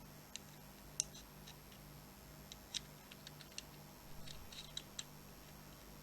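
Scattered small clicks and taps, irregular and faint, from hard parts being handled, with a cluster of quicker ones in the second half.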